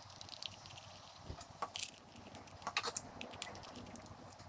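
A few light metallic clicks and clinks as a small round cam-end cover is fitted onto a Yamaha XS650's cylinder head and its screws are turned in with a screwdriver.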